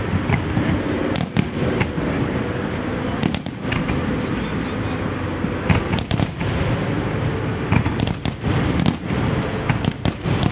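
Fireworks display: a dense run of bangs and crackling pops from aerial shells bursting, following one another with no break.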